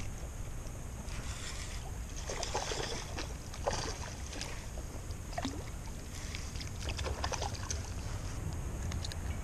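Steady wind rumble on the microphone, with scattered light clicks and short rustles from a baitcasting reel being cranked as a hooked bass is reeled in. The fish splashes at the surface near the end.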